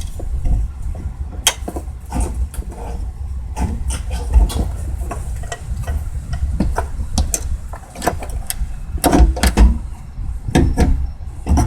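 Irregular clicks and knocks of hard parts being handled and fitted as the fuel pump assembly goes back in, the loudest cluster about nine seconds in, over a steady low rumble.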